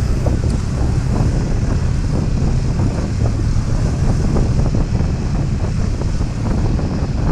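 Suzuki Gixxer 155's single-cylinder engine running steadily while the bike rides at low speed, under a heavy rumble of wind on the microphone.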